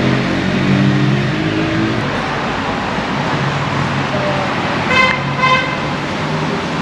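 Road traffic: a vehicle's engine hum fading about two seconds in over steady tyre noise, then two short toots about five seconds in.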